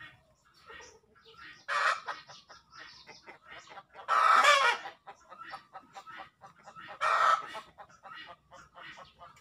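Chickens clucking in a yard, with three louder calls about two, four and seven seconds in; the one near the middle is the longest and loudest.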